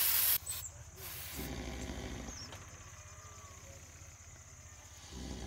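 Aerosol spray can hissing as it sprays medication onto an elephant's wound, cutting off about half a second in. Quiet outdoor background follows, with two brief low sounds, one about a second and a half in and one near the end.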